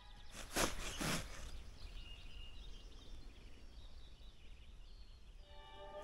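Quiet outdoor background with two short rushes of noise about half a second and one second in, followed by faint high bird chirps.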